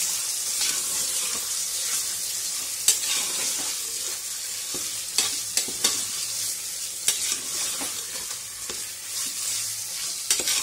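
Raw mutton pieces sizzling in hot oil in an aluminium pressure cooker as they are sautéed, stirred with a spatula, with a steady hiss and scattered scrapes and knocks of the spatula against the pot.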